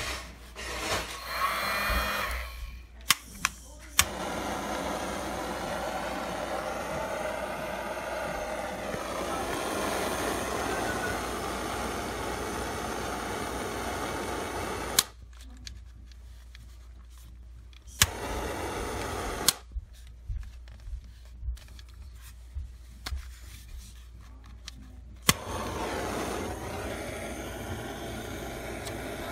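Bison Airlighter 420 butane torch being lit: a few sharp igniter clicks, then the blue jet flame hissing steadily for about eleven seconds before it cuts off suddenly. It is relit briefly, clicks again several times, and near the end the flame hisses steadily once more.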